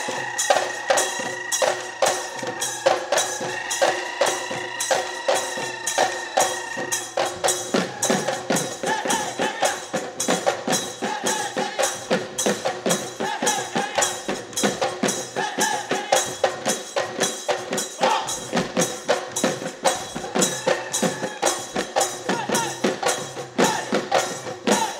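Assamese Bihu music: dhol drums beaten in a fast, driving rhythm under a melody, with held notes for roughly the first seven seconds.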